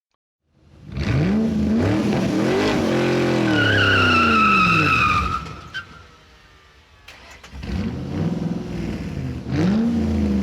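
A car engine revving up and down hard, with a high tyre squeal about four seconds in. The sound drops away briefly around six seconds, and the revving comes back about a second and a half later.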